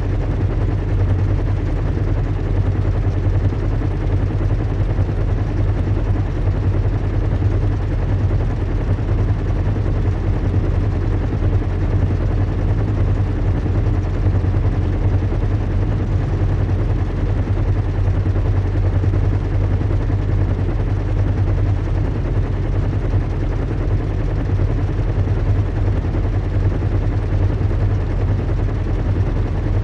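Recreated zeppelin-in-flight ambience: a steady low engine hum and rumble under an even hiss of air, unchanging.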